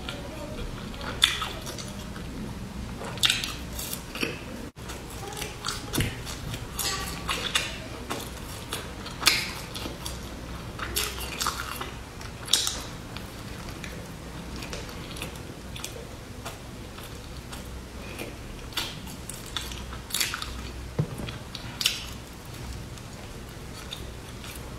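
Close-up biting and chewing of crisp puffed-rice snacks: sharp crunchy bites every few seconds, with quieter chewing in between.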